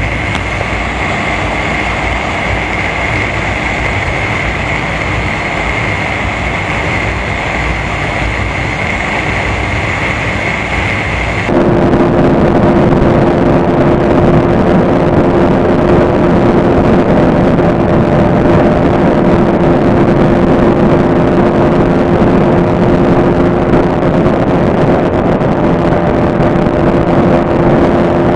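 On-board sound of a Yamaha Fazer 25's single-cylinder engine and wind noise at highway speed, steady. About a third of the way in it cuts to a louder, steady drone from a KTM Duke 200's single-cylinder engine with wind rush, held flat out at a constant 134 km/h.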